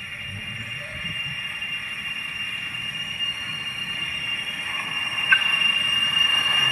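Tram wheels squealing on the tight curve of a turning loop's old track: one steady high-pitched screech that grows louder, with a short click about five seconds in.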